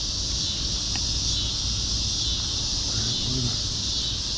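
Evening insect chorus: a steady, even high-pitched drone of many calling insects, with a low rumble underneath.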